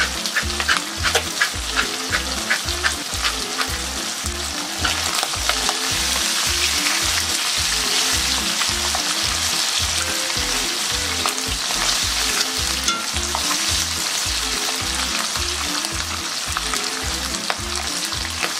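Chicken skin sizzling steadily as it fries in its own rendered fat and released water in a pan, being stirred, with light clicks of the utensil against the pan in the first few seconds.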